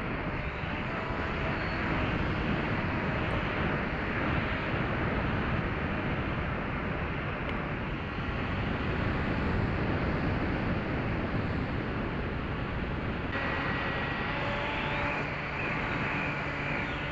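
Small electric FPV plane in flight, heard from its onboard camera: a steady rush of wind with the whine of its Brotherhobby Avenger 2808 brushless motor and 8x4.5 propeller underneath. About thirteen seconds in the sound changes abruptly to a clearer, steadier whine.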